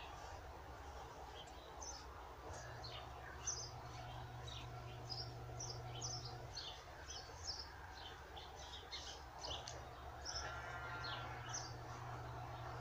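Small birds chirping in short, repeated calls, faint, over a low hum that comes and goes.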